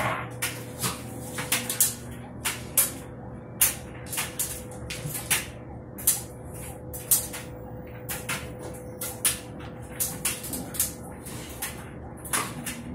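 Puppies' claws clicking and scrabbling on a hardwood floor as two pups wrestle: irregular sharp clicks and knocks, several a second, over a steady low hum.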